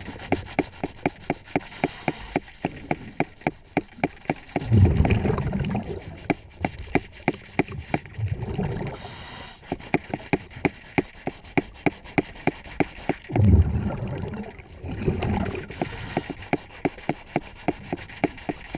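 Scouring pad scrubbed by hand against a boat's underwater surface, heard underwater as a quick, even run of scraping clicks about five a second. Several times a louder low rumble of a scuba diver's exhaled bubbles rises over it.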